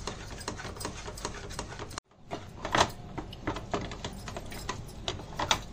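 A spoon scraping and tapping against a non-stick frying pan in quick repeated strokes, stirring a thick milk-powder and sugar-syrup mixture for peda. The sound cuts out briefly about two seconds in, then the stirring goes on.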